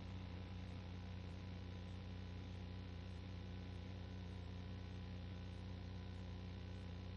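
Steady electrical hum with a constant hiss, unchanging throughout, with no other events.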